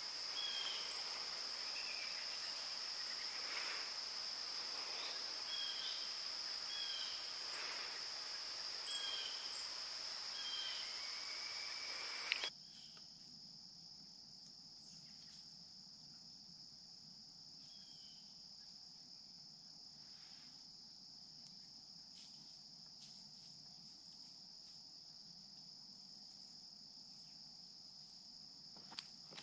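Steady high-pitched insect chorus of crickets, with a few short chirps over it in the first half. The chorus drops sharply in level about halfway through.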